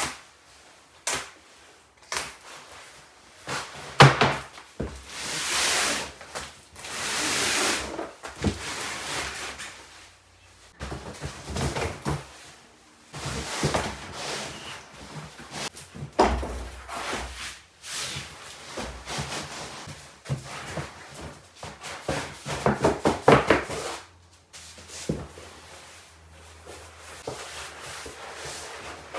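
Handling noises from a rolled drum mat being cut free of its tape, unrolled and laid flat on a concrete floor: irregular thumps, scrapes and rustling sweeps.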